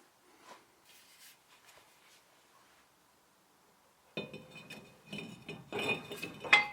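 Mostly quiet with a few faint clicks, then from about four seconds in a run of metal clinks and rattles with a ringing note, as metal brake parts and tools are handled.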